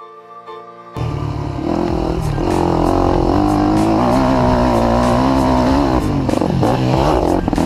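Enduro dirt bike's engine running hard on a motocross track, loud, its pitch wavering up and down with the throttle and dipping briefly near the end. It cuts in sharply about a second in as the music ends.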